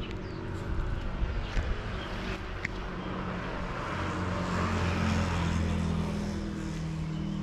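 A motor vehicle passing on the road: a steady engine and tyre noise that swells past in the middle and eases off toward the end.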